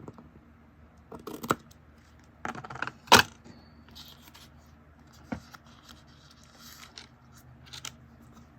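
Paper and craft materials being handled on a work table: scattered rustles, taps and clicks, the loudest a sharp knock about three seconds in.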